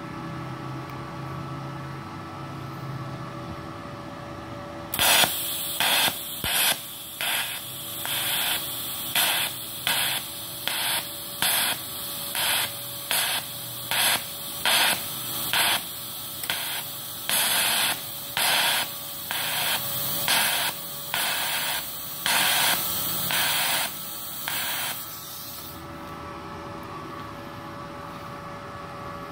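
Electric arc welding on thick stainless steel with an inverter welder set near 100 amps: the arc strikes about five seconds in and crackles loudly, pulsing roughly once a second, then stops about four seconds before the end. A steady hum from the machine is heard before and after.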